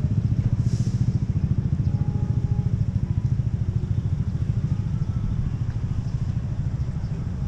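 A motor vehicle engine idling close by, a steady fast low pulsing that runs on evenly.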